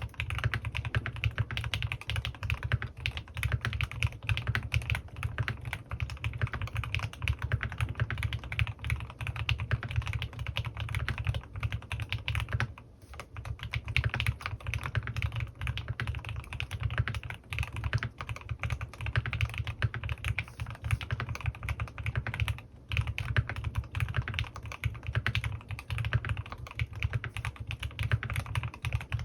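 Fast continuous typing on a CannonKeys Rekt1800 custom mechanical keyboard with lubed Gateron North Pole linear switches and PBTfans Resonance PBT keycaps, a dense run of keystrokes broken by two short pauses, one about halfway through and one a little later.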